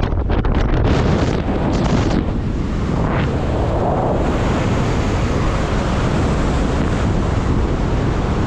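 Loud, steady wind buffeting the camera microphone while descending under an open parachute canopy. The rush is heaviest in the low range and a little gustier in the first couple of seconds.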